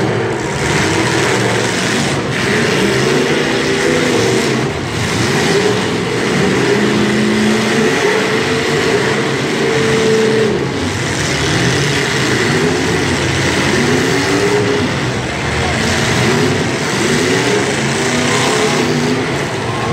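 Several demolition derby cars' engines revving up and down at once, loud and without a break, their pitches rising and falling over each other.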